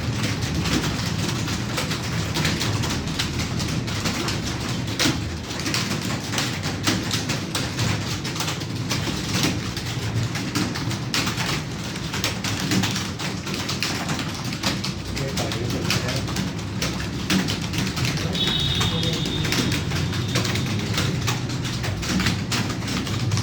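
Computer keyboard keys clicking in fast, continuous typing. A bird calls briefly about eighteen seconds in.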